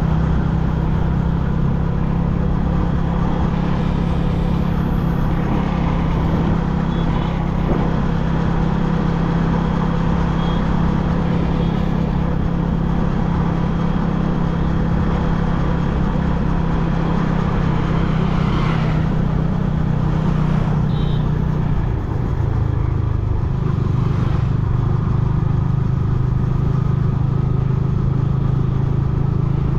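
Yamaha MT-15's single-cylinder engine running steadily at riding speed, with rushing wind noise over it. About two-thirds of the way through the engine note dips briefly, then picks up again.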